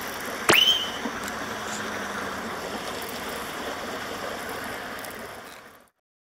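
Steady hiss of running water at the waterside, with one sharp click about half a second in. The sound fades out to silence near the end.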